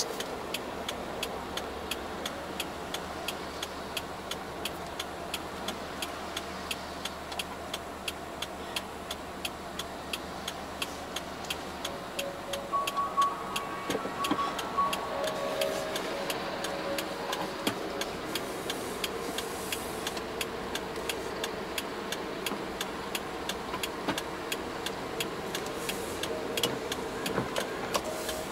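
Car indicator clicking steadily, about three clicks a second, over low road and engine noise inside the cabin of a car crawling behind a combine harvester.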